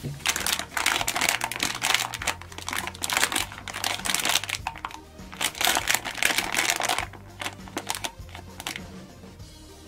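Glossy plastic bath-ball packet crinkling as it is squeezed and turned over in the hands, loud for the first seven seconds and then fading to a few faint rustles, over background music.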